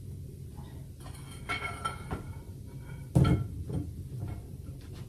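Iron fireplace poker and screen clanking as a wood fire is tended: a few ringing metal clinks about a second and a half in, then a heavy knock about three seconds in and smaller knocks after it.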